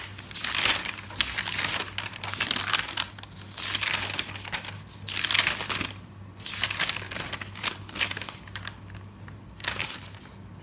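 Paper pages of a handwritten notebook being turned one after another, a papery rustle every second or two, several times over.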